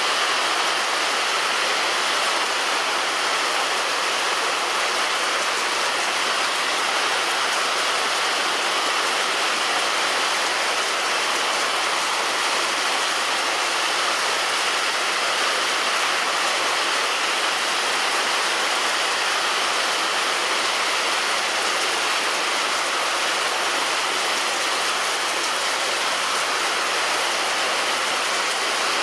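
Rain falling steadily on a roof, a continuous even hiss with no let-up.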